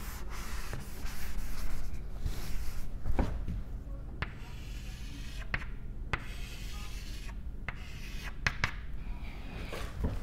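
Cloth duster rubbing across a chalkboard, wiping off chalk marks, louder in the first three seconds, with a few short sharp knocks scattered through the rest.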